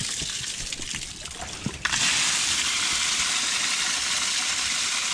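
Heavy rain pouring down, heard from inside a tent: a dense steady hiss with scattered drop ticks that grows suddenly louder about two seconds in.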